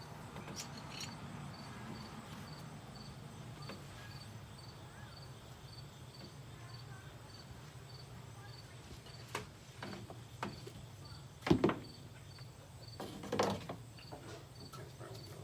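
A few sharp knocks and clatters of hand tools against a commercial vacuum's plastic housing while it is being taken apart, the loudest about eleven and a half seconds in. Crickets chirp steadily in the background over a low hum.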